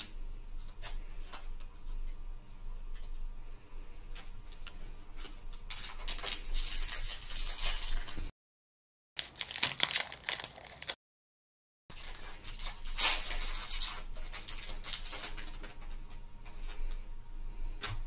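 Foil Pokémon booster pack wrapper crinkling and tearing open in the hands, after a few light clicks of cards being handled. The sound cuts out completely twice, for about a second each time.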